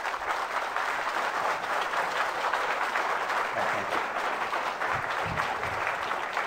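Audience applauding: steady clapping from a large crowd, easing off slightly near the end.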